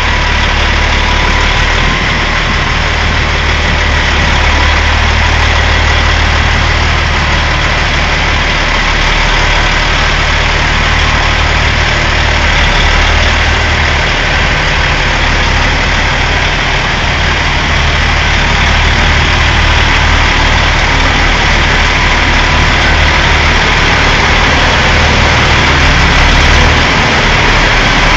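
Semi tractor's diesel engine running steadily at low revs, heard loud and close as the truck creeps forward under load.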